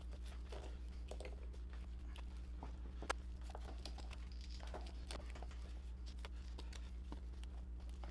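Crinkling and light clicking from handling a plastic-wrapped stack of glued wood laminations pressed by a gloved hand onto a clamped bending form, with one sharper tap about three seconds in, over a steady low hum.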